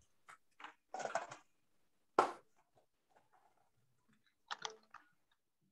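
Colored pencil working on paper: a few faint, short scratchy strokes, with one sharp click about two seconds in.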